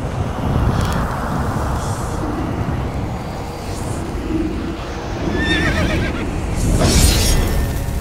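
Dark cinematic intro sound design: a steady low drone, a horse whinnying with a wavering pitch about five and a half seconds in, then a loud sudden hit near the end for the logo reveal.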